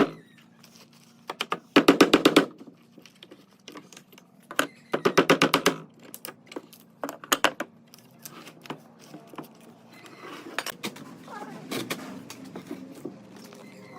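Short bursts of rapid, evenly spaced clicking, each under a second long, two of them a few seconds apart, followed by scattered single knocks and light clatter.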